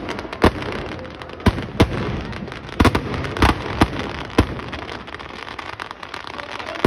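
Firecrackers packed inside a burning Ravana effigy going off: sharp bangs at uneven intervals, eight in quick succession over the first four and a half seconds, then a lull and one more near the end.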